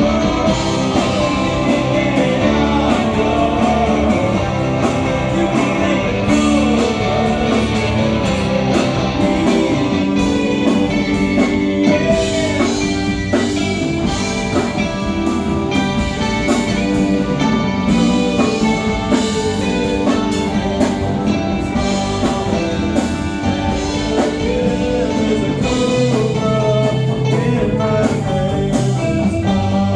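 A live rock band playing, with electric guitar to the fore over a steady beat.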